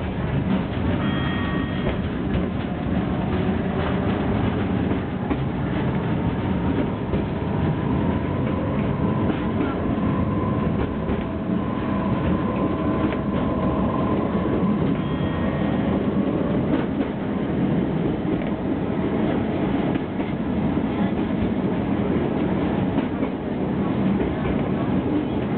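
Miniature ride-on train running along its track: a steady rumble and rattle of its small wheels on the rails, with a faint whine through the middle.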